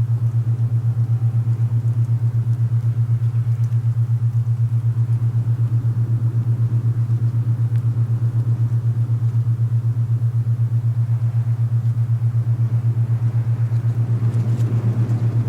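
Alpha binaural beat: a low steady tone throbbing rapidly and evenly, laid over rushing wind that swells near the end.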